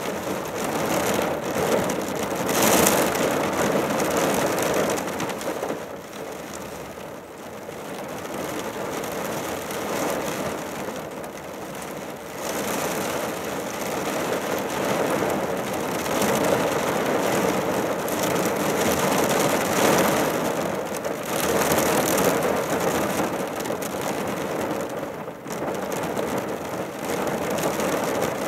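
Rain on a car's roof and windscreen heard from inside the cabin, a dense steady noise that swells and eases; it falls off about six seconds in and builds again from about twelve seconds.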